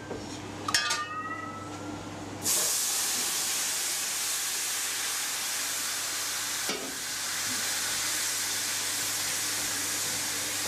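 Sauce base poured into a hot frying pan to deglaze it: after a short clink, the liquid hits the pan about two and a half seconds in with a sudden loud, steady sizzle and hiss of steam.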